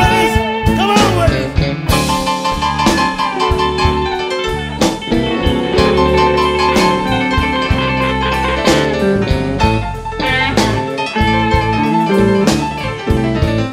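Blues band playing an instrumental break: a lead guitar with bent notes over bass and drums.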